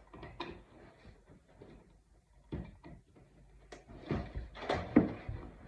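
Knocks, taps and rubbing of a screen door frame being worked on as the spline is pressed down into its channel to hold the screen, with the louder knocks coming about four to five seconds in.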